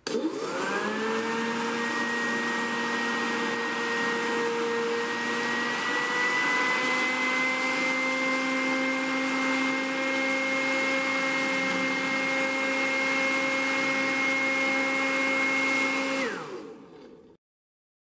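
Homemade plastic-bottle vacuum cleaner, a 12 V DC motor driving a tin-lid fan on 20 V, spinning up at the start into a steady whine with rushing air as it sucks up plastic bag shreds. Its pitch rises a little about six seconds in, and the motor winds down near the end.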